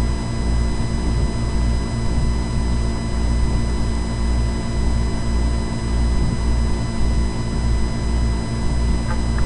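Steady low rumble with irregular wind buffeting on the microphone and a constant drone under it.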